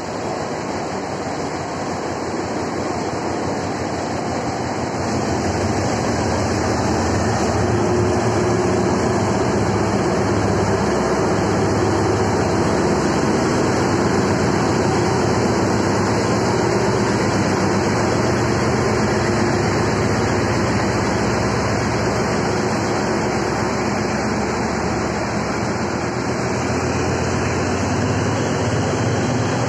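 Hitachi diesel-electric locomotive hauling an express train away from the platform. Its diesel engine runs as it passes close by, louder from about six seconds in. The coaches then roll past with steady wheel and rail noise.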